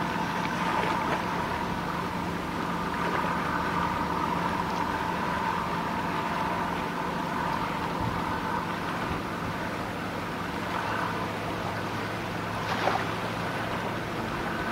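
Boat engine running steadily at low revs, a constant hum with a higher whine above it. A brief knock sounds near the end.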